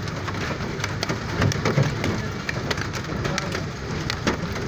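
Heavy rain with hail: hailstones striking hard surfaces in many sharp, irregular clicks and knocks over a steady hiss of downpour.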